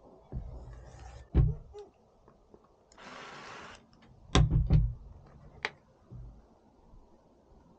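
Green Bosch cordless drill spinning briefly for under a second, about three seconds in. Knocks and clatter of the plastic headlight mask and the drill being handled and set down on a wooden board come before and after it.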